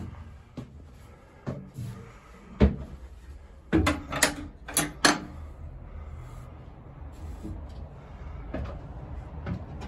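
Knocks of steps on a wooden staircase, one louder thump about two and a half seconds in, then a quick run of clicks and knocks as an old wooden door with iron strap hinges is pushed open, followed by steady open-air background noise.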